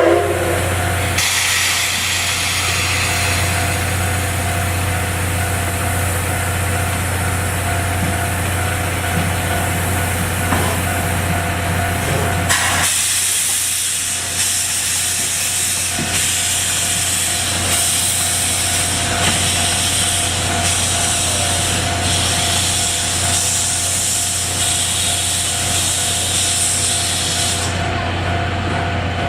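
Steam locomotive C57 180 standing or moving slowly, with a steady low hum and a hiss of steam. The hiss changes abruptly about a second in and again about twelve seconds in, after which it pulses roughly once a second.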